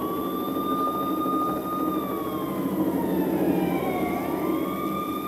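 Police sirens played as a theatre sound effect: two wailing sirens that rise and fall slowly and overlap, over a low rumble.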